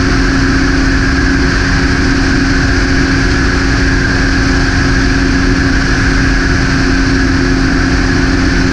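Light propeller aircraft's engine and propeller droning steadily in level cruise, one constant pitch throughout.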